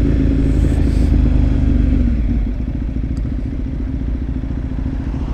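Ducati 848 L-twin engine running as the motorcycle rides along, with low wind rumble on the microphone. About two seconds in the engine note drops and gets quieter, then carries on steadily.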